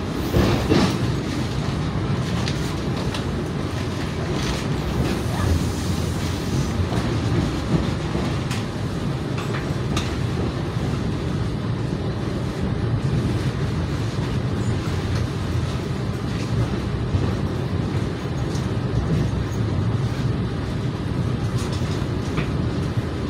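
Running noise heard from inside a passenger coach of the KA Argo Cheribon intercity train: a steady low rumble of wheels on rail with scattered clicks and knocks, as the train runs into its final station.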